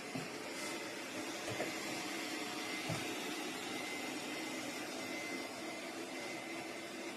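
Cecotec Conga Z100 X-Treme robot vacuum running with a steady whir and a thin high whine. There are a few light knocks near the start and about one and a half and three seconds in.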